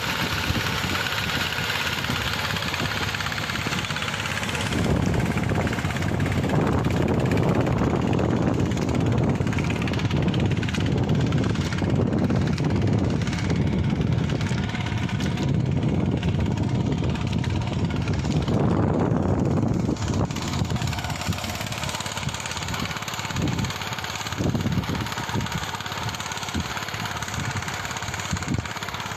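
A farm machine's engine running steadily. It grows louder about five seconds in and eases back around twenty seconds, as if the machine passes close and moves away.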